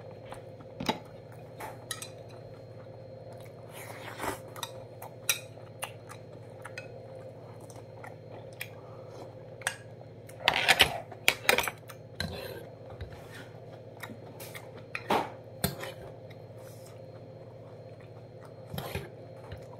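Eating at a table: a spoon clinking against dishes in scattered taps, with chewing, over a steady low hum. A brief flurry of louder clatter comes about halfway through.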